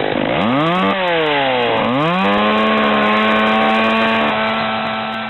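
Chainsaw engine revving: the pitch climbs in the first second, drops back, then climbs again and holds at a high, steady rev before starting to fade near the end.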